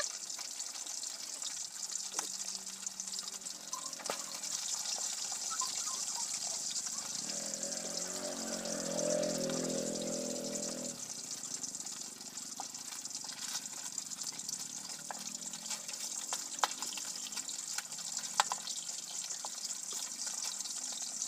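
Cleaver slicing soaked dried mushrooms on a wooden chopping block: occasional sharp knocks of the blade on the wood over a steady high hiss. A pitched hum rises and fades in the middle.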